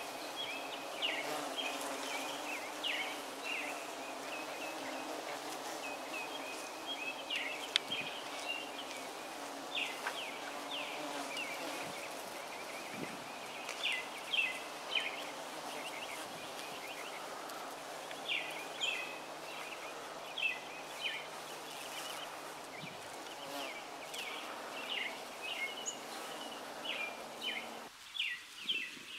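Bees humming steadily as they work the blossoms of a flowering holly tree, with a bird chirping in short, repeated phrases over the drone. The hum drops away near the end.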